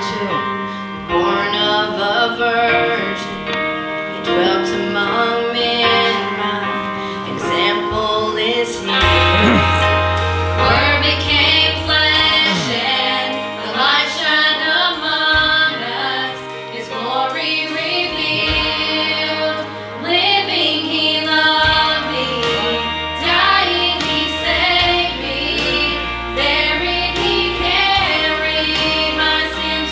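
Women singing a gospel song with instrumental accompaniment. A deep bass line comes in about nine seconds in.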